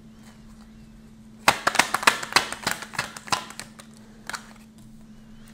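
A tarot card deck being shuffled by hand. A quick run of card clicks and slaps lasts about two seconds, then a couple of single taps follow.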